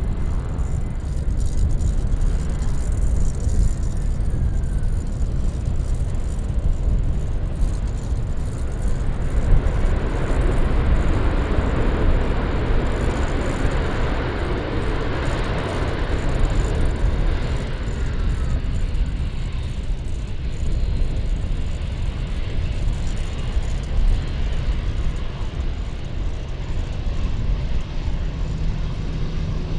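Jet airliner passing by: its engine noise swells from about a third of the way in, peaks near the middle and fades away, over a steady low rumble.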